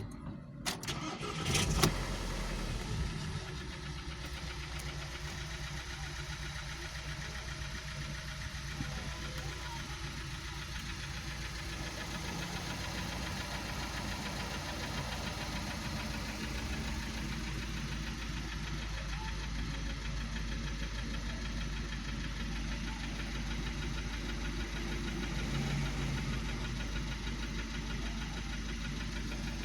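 Volkswagen Passat CC's 2.0 TSI four-cylinder turbo petrol engine (EA888 gen 1, CCT) starts about two seconds in, then runs steadily with a knock of the kind that is almost always a piston knock. The teardown found the third cylinder's piston and spark plug destroyed.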